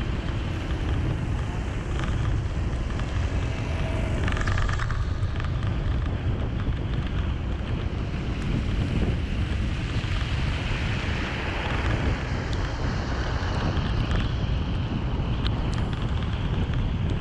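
Steady vehicle road noise from driving through heavy rain on a waterlogged road: an even hiss of rain and water spray over a low wind rumble on the microphone.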